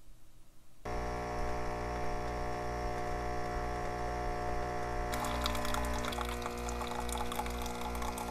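Tassimo pod coffee machine brewing. Its pump starts abruptly about a second in and hums steadily with a pulsing low throb while coffee streams into a mug. From about five seconds in a crackling hiss joins.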